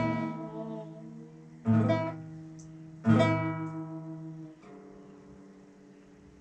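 Acoustic guitar strummed one chord at a time, each chord left to ring and fade away: two full strums about a second and a half apart, then a softer one.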